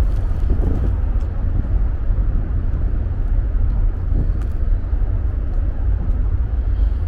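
Wind buffeting the microphone in a snowstorm: a steady, choppy low rumble.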